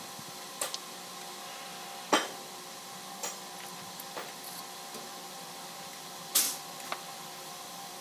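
Scattered knocks and clicks of tools and parts being handled, with two louder clacks about two seconds in and about six seconds in, over a steady background hum.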